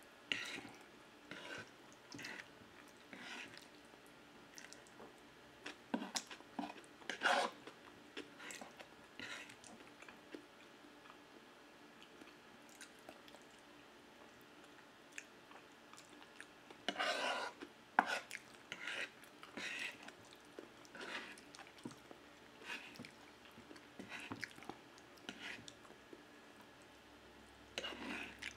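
Close-miked eating sounds: chewing and slurping forkfuls of spaghetti in tomato sauce, in short irregular bursts, the loudest about 7 seconds and about 17 seconds in.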